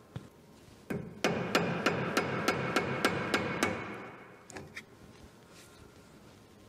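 A hammer striking metal: a single knock, then a quick run of about nine blows at roughly three a second, the ring of each carrying on between them.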